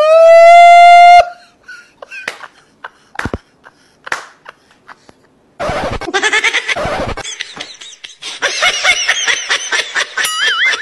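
A loud horn-like blast, held for about a second and rising slightly in pitch. A few scattered clicks follow, then from about halfway laughter and high-pitched wavering voices.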